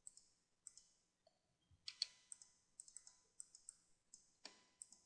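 Faint, scattered clicks of a computer mouse and keyboard, about a dozen at irregular intervals, as values are clicked and typed into fields.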